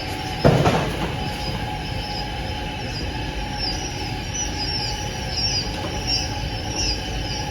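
Many newly hatched Japanese quail chicks peeping, short high falling chirps repeating over a steady mechanical hum. A single thump about half a second in.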